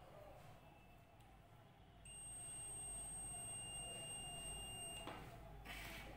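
Digital multimeter's continuity buzzer giving one steady high-pitched beep of about three seconds while its probes are held on a capacitor on the board. It is followed by a short rustle of handling near the end.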